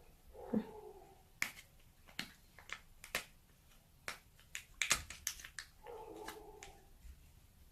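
A string of sharp clicks and taps from handling plastic cream tubs and a spoon, with a short pitched call near the start and another about six seconds in.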